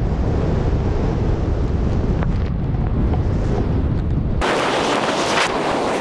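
Wind buffeting a skier's action-camera microphone at speed, a heavy low rumble. About four and a half seconds in, the rumble drops out and a bright hiss takes over.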